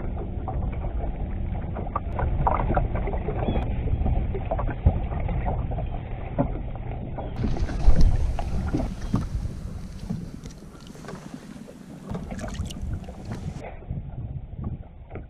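Wind buffeting the microphone and water lapping against a bass boat's hull, a steady low rumble, with scattered knocks and rattles from handling a caught fish and tackle; the loudest knock comes about eight seconds in.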